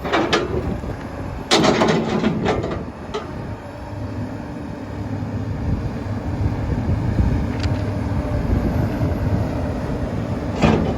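Komatsu PC200LC-8 excavator's diesel engine running steadily, a low hum that grows gradually louder from about four seconds in. A few short clatters come in the first two seconds.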